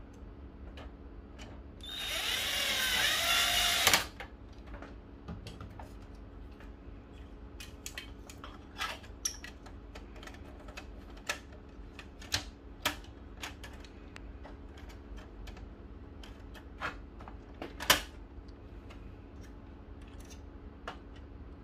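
An electric screwdriver whirs for about two seconds, rising as it drives a screw, then stops sharply. Scattered light clicks and knocks follow as plastic printer parts are handled and fitted, the sharpest a little before the end.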